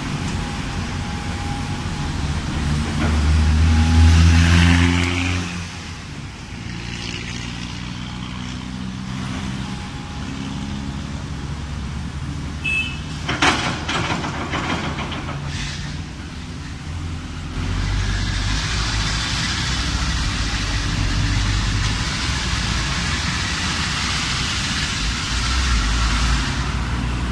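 Heavy diesel engines of a CAT excavator and a loaded ten-wheel dump truck running. The excavator's engine revs up and is loudest about four seconds in. Near the middle there is one sharp bang, and the last third holds a louder, steadier rush over a low rumble.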